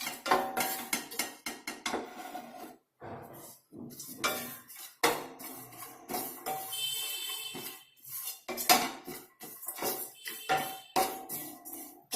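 A metal spatula clattering and scraping in a pan as pieces of licorice root are dry-roasted, in quick irregular strokes with a few short pauses and a brief ring about seven seconds in.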